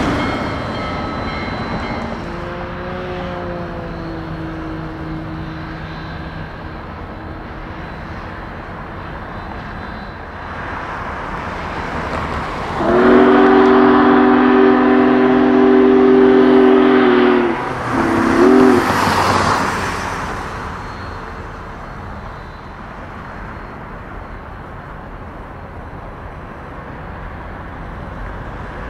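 Steam locomotive chime whistle on a double-headed steam train in motion. It sounds one long blast and then a short one, over the steady noise of the train running. A fainter whistle, dipping slightly in pitch, comes about three seconds in.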